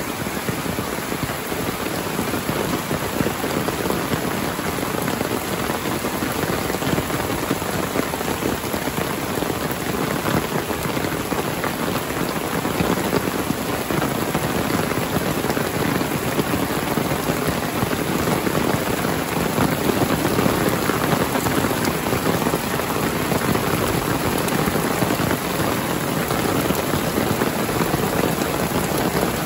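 Heavy rain falling steadily: a dense, even hiss flecked with countless drop impacts.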